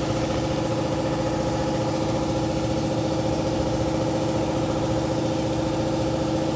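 A motor running at a steady pitch, a constant machine drone with an even hum.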